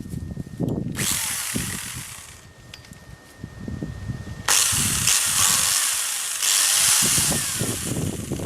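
Telescopic pole chainsaw running, with two bursts of loud, hissing cutting noise: one about a second in lasting a second and a half, and a longer one from about four and a half seconds to the end. A faint steady whine sounds between the bursts, over irregular low knocks.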